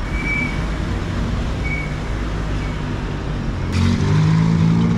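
Street traffic: cars going by at a crossing. Near the end a pickup truck pulls up close, and its engine hum comes in suddenly and stays loud.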